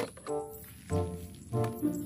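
Background music: a melody of short held notes.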